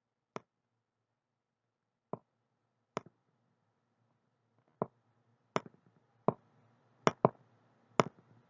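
Short sharp clicks, about nine, irregularly spaced and coming closer together in the second half, as a word is handwritten on a digital worksheet. Near silence between the clicks.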